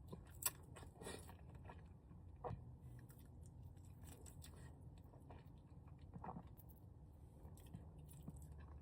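Quiet close-up eating of sauced chicken wings: soft chewing with scattered small bites and crunches, a sharper one about half a second in and another near two and a half seconds.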